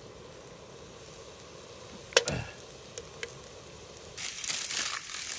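One sharp knock about two seconds in and two faint ticks, then rustling and crinkling of a plastic bag from about four seconds in.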